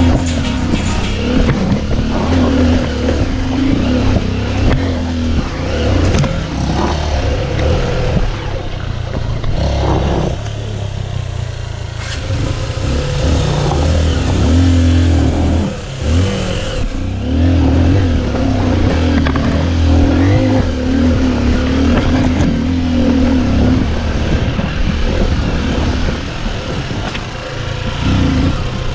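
Motorcycle engine running while riding down a rough, rocky dirt trail, its revs rising and falling over and over, with scattered knocks and rattles from the bike over the stones.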